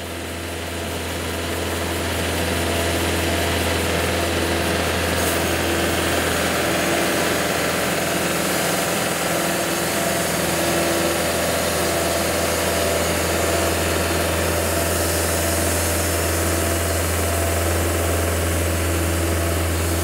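Cooks AC36 hydraulic band sawmill running, its band blade cutting through a log as the head feeds forward: a steady low machine hum under a dense, even cutting noise. The sound builds over the first couple of seconds as the blade enters the wood, then holds steady.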